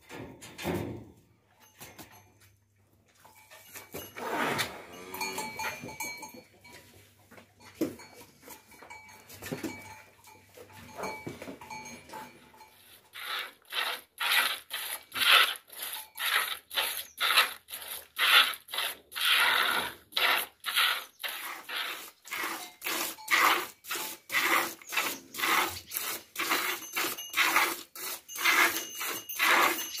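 Hand milking of a cow: milk jets squirting into a plastic bucket in a steady rhythm of about two squirts a second, starting a little before halfway. Earlier there are scattered farm animal sounds, with one call about four seconds in.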